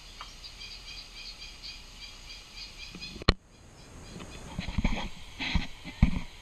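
Birds chirping in short repeated calls, then a sharp click about three seconds in, followed by low thumps and rustling from the camera being handled.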